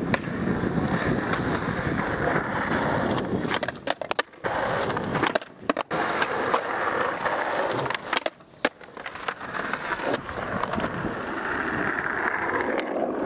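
Skateboard wheels rolling over concrete, a continuous rough rumble broken by a few brief drops.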